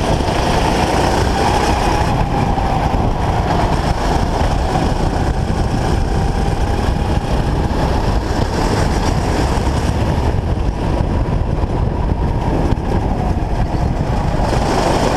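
Racing kart engine running at speed, its pitch drifting slightly up and down through the corners, heard under heavy rushing wind noise on a helmet-mounted camera.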